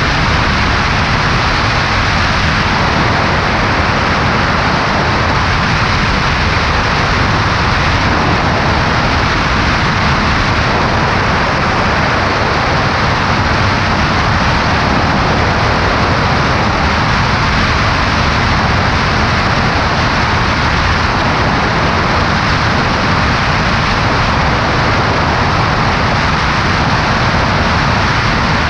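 Steady in-flight noise of a Cessna 140A light plane, heard from its left wing: engine and propeller drone under a constant rush of wind.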